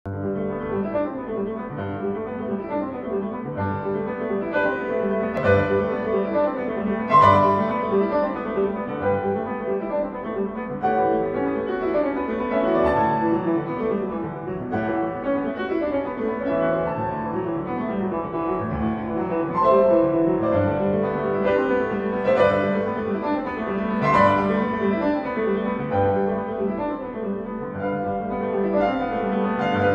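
Background piano music, a steady flow of overlapping held notes.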